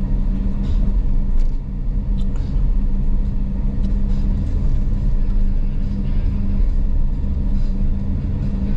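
Car interior while driving: steady engine and road rumble with a constant low hum under it.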